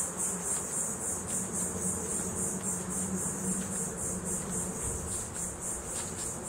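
Insects calling in a steady high-pitched chorus that pulses about four times a second.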